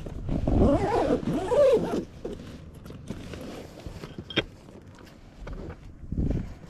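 A dog whining in rising and falling wavering cries for about a second and a half, followed by a few light clicks and a low thump near the end.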